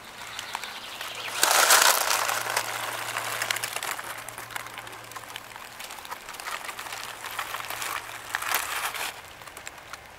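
Outdoor rustling and light crackling, full of small ticks, swelling louder twice: a little over a second in and again near the end.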